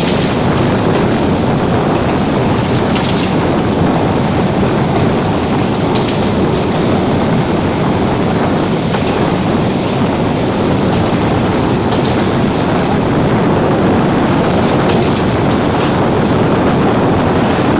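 Metre-gauge commuter train running at speed, a steady loud rumble mixed with rushing air, with a few faint clicks along the way.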